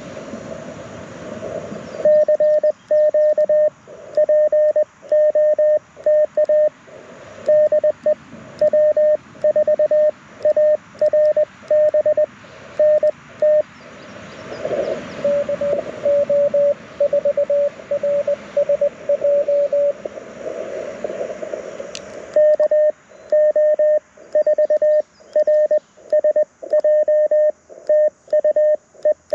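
Morse code from an LNR Precision Mountain Topper MTR4B transceiver: a loud keyed sidetone sending at about 600 Hz, with receiver hiss cut out between the dots and dashes. It starts after about two seconds of hiss. Midway a fainter, slightly lower-pitched CW signal from another station comes through the band noise, then the loud sending resumes.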